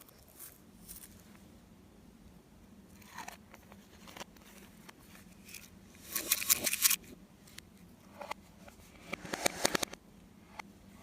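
Slime being squished and worked by hand, giving sticky crackling pops and clicks, with two louder runs of crackling about six and nine seconds in.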